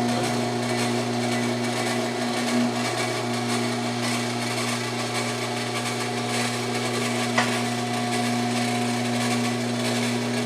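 Electric motor running with a steady hum as it drives the induction furnace's chamber open, stopping right at the end once the chamber is open enough.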